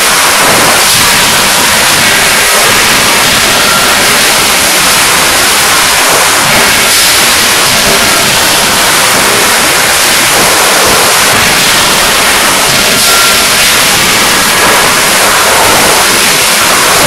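Loud, constant din of a forging shop, with several CNC forging hammers and presses running at once. No single hammer blow stands out from the noise.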